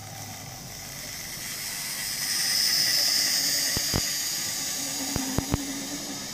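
Hornby J94 0-6-0ST model locomotive's electric motor whining as the train runs past, rising to its loudest about halfway and then fading. A few sharp clicks come in the second half as the wheels run over the track.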